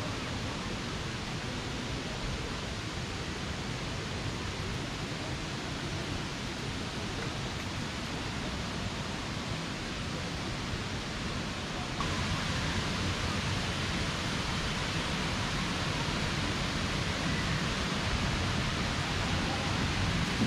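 Steady rushing of river water, a little louder from about twelve seconds in.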